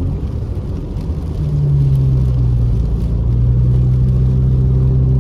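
Car engine and road noise heard from inside the cabin while driving. The engine hum is quieter for about the first second, comes back about a second and a half in, eases slightly lower in pitch and then holds steady.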